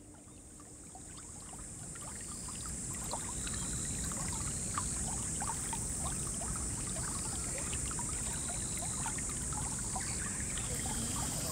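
River water lapping and trickling close by, with many small bubbly plinks, fading in over the first few seconds, under a steady high-pitched hiss.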